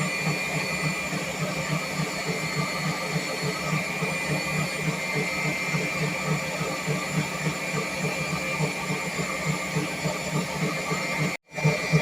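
Electric mixer running at full speed, its beaters whipping egg whites and sugar in a bowl: a steady high whine over a fast pulsing churn. The sound cuts out for a split second near the end.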